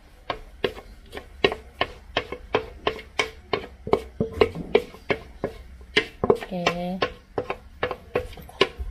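A steady run of sharp taps or clicks, about three a second, with a short pitched call or voice sound about two-thirds through.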